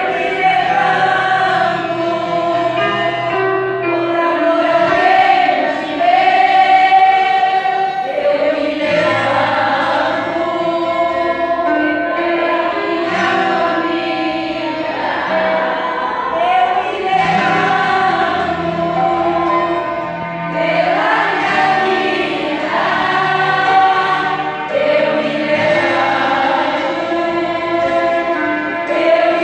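A large group of women singing a hymn together, in sung phrases of about four seconds each, over a low bass line.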